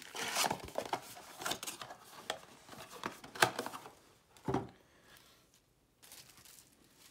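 Cardboard trading-card blaster box being opened and handled: rustling and scraping of the flaps, a sharp tap about three and a half seconds in, and a knock about a second later as the box is set down on the table.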